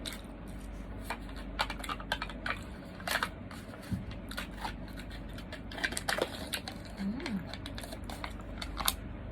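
Close-up eating sounds: a scattered string of small clicks, crunches and crinkles from chewing and handling food and its packaging.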